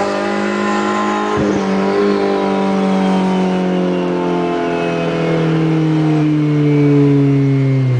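Turbocharged Honda Civic VTi engine held at high revs, its pitch sinking slowly and steadily, with a brief knock about a second and a half in.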